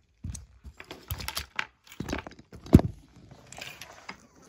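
Handling noise: a scatter of light clicks and knocks of plastic toys and a handheld camera being moved about, the sharpest knock a little under three seconds in.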